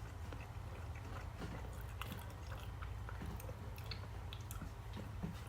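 A person chewing soft meatloaf, with faint wet mouth clicks scattered through, over a low steady hum.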